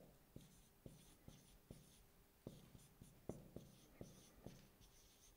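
Faint squeaks and light taps of a marker pen writing on a whiteboard, in short strokes.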